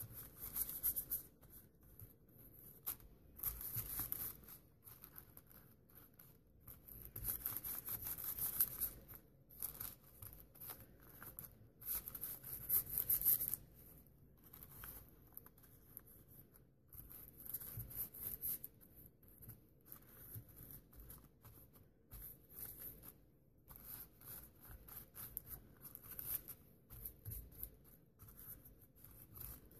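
Paintbrush scrubbing gold paint onto paper cards in uneven bursts of scratchy brushing, loudest in the first half, with paper rustling and sliding as the cards are held and moved by hand.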